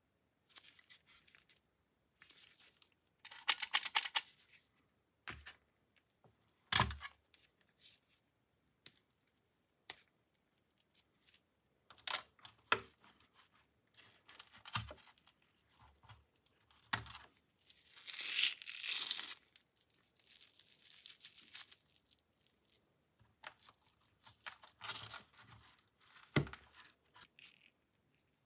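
Close handling noises: textured rubber gloves rustling and rubbing against a Glock magazine, a hard plastic pistol case and its foam lining, with scattered sharp plastic clicks and knocks and a few longer rustling passes.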